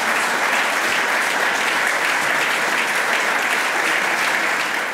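Audience applauding steadily after a lecture, a dense, even clapping.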